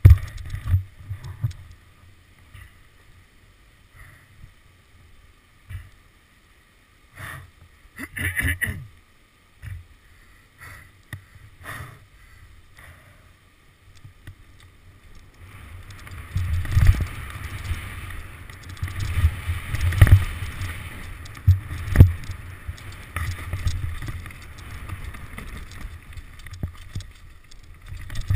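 Mountain bike descending a rough dirt forest trail, heard through a helmet-mounted camera: wind on the microphone and rumble from the bike over the ground, with sharp knocks from bumps. It is mostly quiet with a few short bursts in the first half, then loud and continuous from about halfway.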